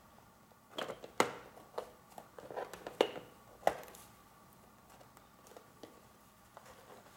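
Sharp clicks and taps of a cheap poster frame's metal retaining tabs being pushed down against the hardboard backing: several clicks between about one and four seconds in, a couple with a brief metallic ring.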